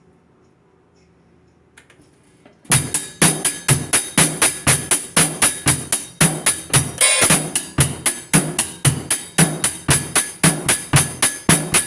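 A drum beat starts abruptly about three seconds in after a faint quiet: a steady, fast rhythm of hits, about three a second, each with a low thump and a bright hiss on top.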